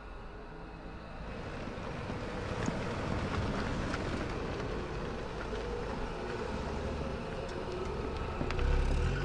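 Street traffic noise, a steady rumble that swells from about a second in. The low rumble of a passing car's engine peaks near the end.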